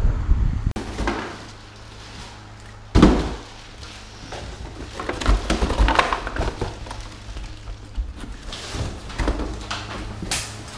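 Cardboard boxes and trash being handled indoors: one loud thump about three seconds in, then scattered knocks and rustling of cardboard.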